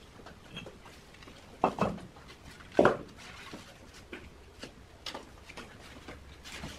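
Cement bricks being handled and set down on a tarp-covered floor beside a sheet-metal mould, giving a few hard knocks: two close together a little under two seconds in, the loudest just before three seconds, then fainter clicks.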